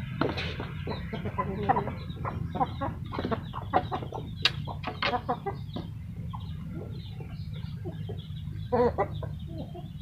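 Chickens clucking in short, scattered calls, with a few sharp clacks as bundled wooden fly egg-laying strips are set down in a plastic tray.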